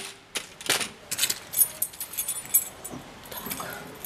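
A folding shopping trolley being loaded into a car boot: a string of short knocks and metallic clinks and jingles, the busiest cluster a little over a second in.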